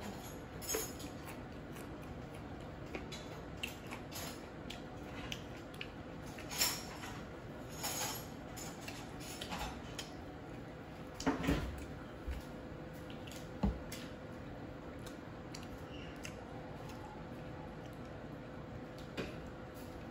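Scattered light clicks, taps and soft squishy noises of chicken wings, plates and a squeeze bottle of sauce being handled at a table while eating by hand, over a faint steady hum.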